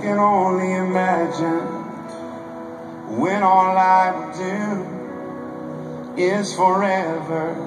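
A rock band and symphony orchestra playing a slow ballad live. Sustained chords run under a wavering melody line that comes in three phrases, with a quieter stretch near the middle.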